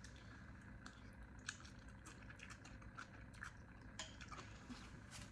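Near silence with a few faint, soft clicks about a second apart: quiet chewing and mouth sounds while eating noodle soup.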